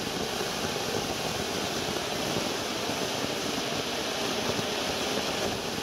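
Giant anar (cone-shaped firework fountain) spraying sparks with a steady hiss.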